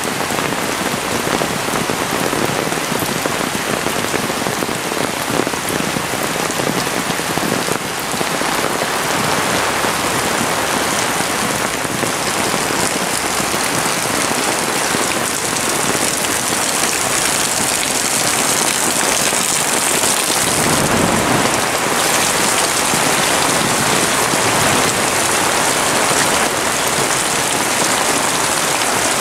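Heavy rain falling steadily: a dense, even hiss that grows a little louder about eight seconds in.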